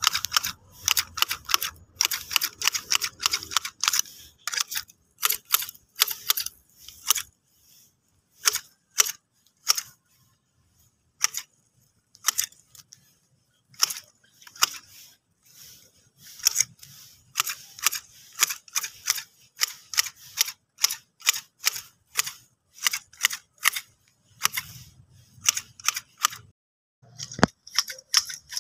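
Long-handled hedge shears snipping grass: a run of sharp metallic clicks, about two or three a second, broken by a few short pauses.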